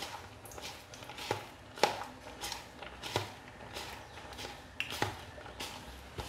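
A hand squeezing and tossing spiced sliced onions in a bowl: soft rustling with irregular knocks of the hand against the bowl, the sharpest just before two seconds in.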